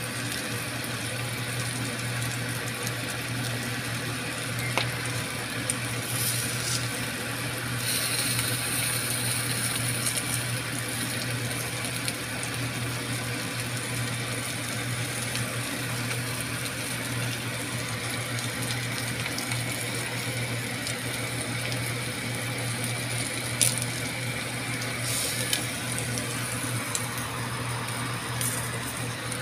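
Mussels on the half shell sizzling in butter on a hot stovetop pan over a steady low hum, with a few sharp clinks of metal tongs against the shells and pan.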